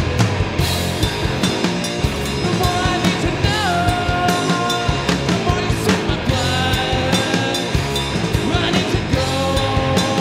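Rock band playing live: drum kit with cymbal crashes, bass guitar and electric guitar, with held notes that bend in pitch.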